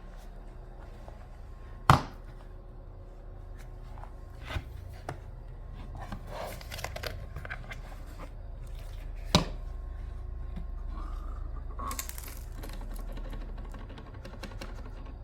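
Handling noises: two sharp knocks, about two seconds in and again past the middle, with lighter clicks and rustling or crinkling between them, over a low steady hum.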